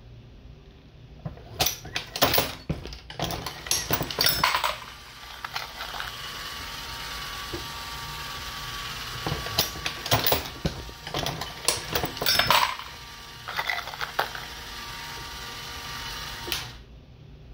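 Metallic clicks, clinks and knocks from a Dillon XL750 progressive reloading press as brass .223 cases and bullets are handled and seated on the shellplate. Under the clicks runs a steady rattling hiss that stops abruptly near the end.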